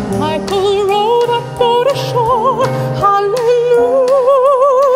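Soprano voice singing long held notes with wide vibrato, accompanied by piano and a drum kit keeping a steady beat.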